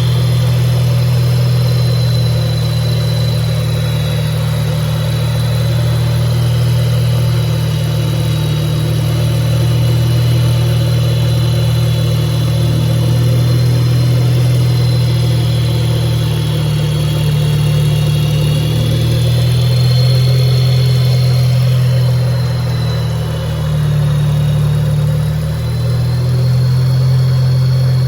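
Wankel rotary engine running steadily, with slight swells in speed, and a thin high whine wavering above the engine note.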